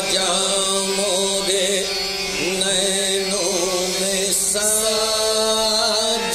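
Qawwali: male voices singing a long, ornamented melodic line over a steady low drone, moving to a new held note a little past halfway.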